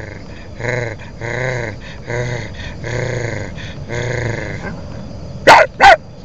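Dog-like growling: a run of about six short whining growls, each rising and falling in pitch, then two loud sharp yelps or barks near the end.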